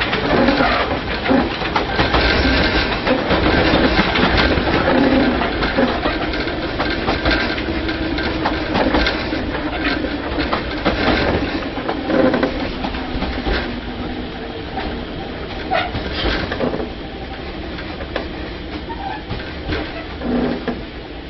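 Interior running sound of a Tobu 5050 series electric train with nose-suspended (tsurikake) traction motors, heard from inside the carriage. The train runs with loud rumble and a steady motor-and-gear hum, broken by frequent knocks and rattles. The noise eases noticeably about two-thirds of the way through.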